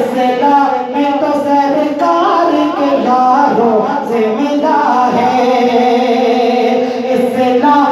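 A man singing an Urdu naat unaccompanied into a microphone, in long held notes that bend and step between pitches.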